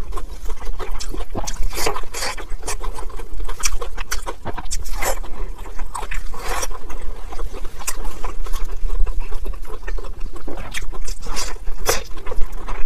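Close-miked chewing and wet mouth sounds of eating a soft steamed dumpling: irregular sticky smacks and clicks, several a second.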